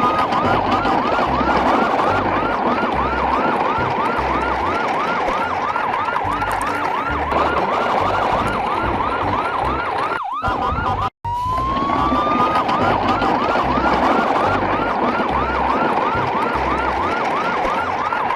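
Electronic toy siren yelping fast, about three wails a second, over a low rumble. It starts with a rising sweep, cuts off suddenly about ten seconds in, then starts over with the same sweep.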